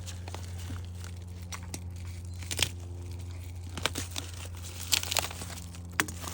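A shipping package being cut and torn open by hand: crinkling plastic wrap and tape tearing, with a few sharp snaps, over a steady low hum.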